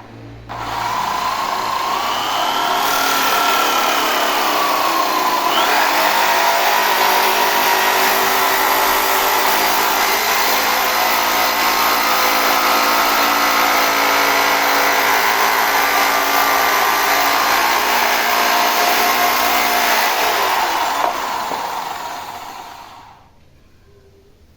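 Electric hand drill rigged as a homemade sanding machine, running loud and steady with a motor whine that shifts in pitch around five seconds in. It starts about half a second in and runs down to a stop near the end.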